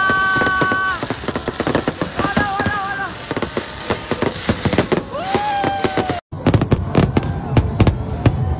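A fireworks display crackling and banging densely, with people letting out long, excited whooping shouts over it. The sound drops out for an instant about six seconds in, then the crackling and bangs carry on.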